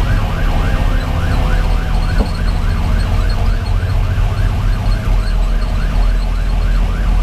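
Fire engine's electronic siren in a fast yelp, a rising-and-falling wail repeating about four times a second, heard from inside the cab over the steady low drone of the truck's Detroit Series 60 diesel.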